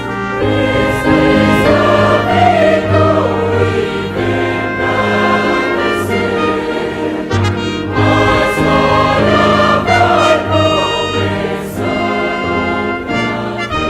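Mixed choir singing a hymn, accompanied by a brass ensemble with trumpets, in two swelling phrases with a short dip in the middle.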